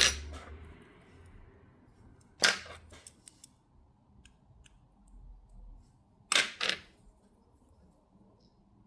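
Small hand tools clicking and tapping against a watch movement as the train bridge is worked into place. A sharp click comes right at the start, a cluster of clicks about two and a half seconds in, and a quick run of three about six seconds in.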